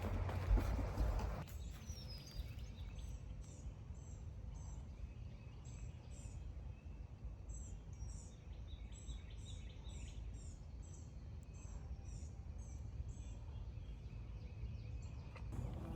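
A small bird calling with short, high chirps, repeated about once or twice a second, over a steady low outdoor rumble. A louder rustle comes in the first second or so.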